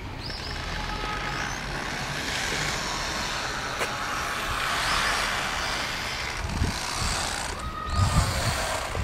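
Passing road traffic: a rushing noise that swells to its loudest about halfway through and then eases, over a low rumble, with a few low knocks near the end.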